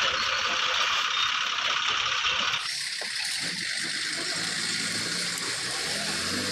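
Steady hiss of rain that drops abruptly to a softer rain about two and a half seconds in. From about halfway a bus engine hums low underneath.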